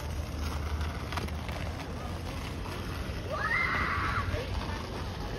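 Outdoor night ambience: a steady low rumble, with one brief, higher sound lasting about a second some three and a half seconds in.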